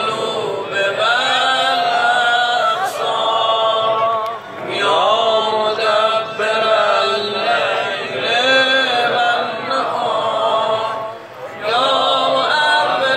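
A group of men singing together a cappella, a chanted hymn in long melodic phrases with short breaks about four and eleven seconds in.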